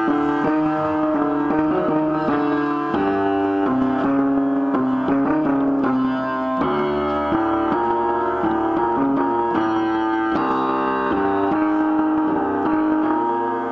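Upright piano being played by hand: a melody over chords, the notes changing every fraction of a second.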